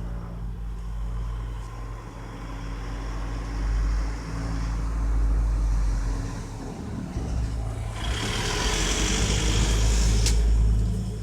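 An engine running with a steady low drone. A loud rushing hiss joins about eight seconds in, and there is a single sharp click near the end.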